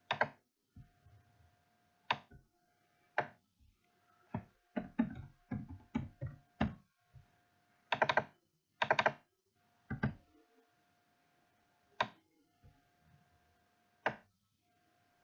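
Computer keyboard keystrokes and mouse clicks, sharp and irregular, with a quick run of typing a few seconds in and a couple of louder clicks later on.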